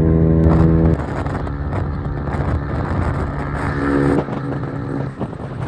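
Single-cylinder 125 cc motorcycle engine running at road speed, heard from the saddle: a steady engine hum for about the first second, then mostly wind and road rush, with the engine tone coming through again about three to four seconds in.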